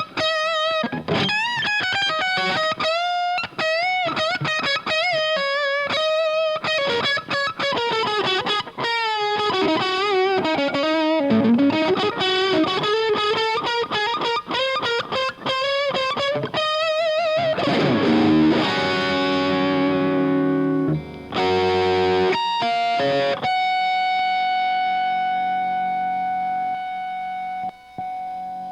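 Electric guitar played through an Omega Series Micro amplifier, heard through a Greenback cabinet impulse with added reverb: quick single-note lead lines with bends and vibrato, then a few chords, ending on a held chord that rings out and slowly fades.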